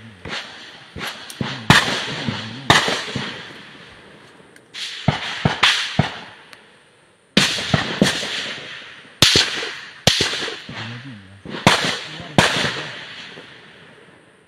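Rifle gunfire: about a dozen sharp shots at irregular intervals, each followed by a long echoing tail, with a short lull a few seconds in.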